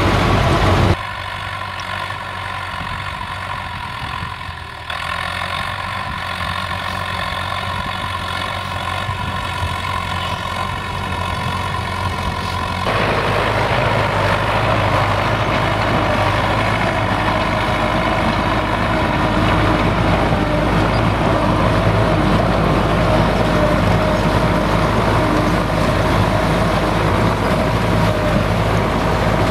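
Belarus MTZ-82 tractor's four-cylinder diesel engine running steadily under load while ploughing. The sound changes abruptly about a second in, and around 13 seconds in it turns louder and fuller.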